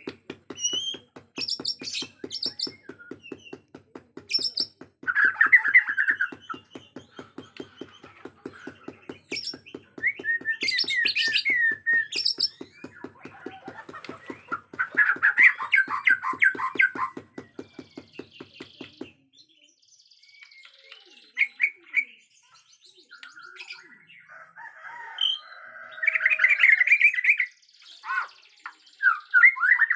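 A Bornean white-crowned shama (murai batu Borneo) singing in agitated full song: loud, varied whistled phrases and chattering trills with short pauses between. For about the first two-thirds, a fast, even pulsing runs underneath, then stops.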